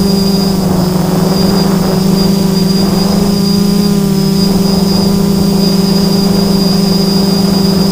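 FPV multirotor drone's electric motors and propellers heard from the onboard camera: a steady hum with a thin high whine over it, holding nearly the same pitch while the drone hovers.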